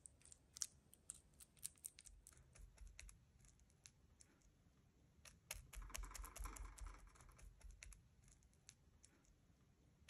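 Faint, irregular soft clicks of a chef's knife blade pressing and spreading wet grated onion pulp over minced meat.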